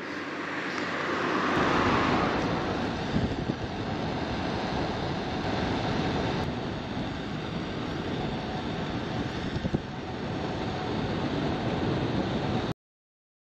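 Wind rushing over the microphone of a bicycle-mounted camera while riding, with road and traffic noise, swelling about two seconds in and cutting off abruptly near the end.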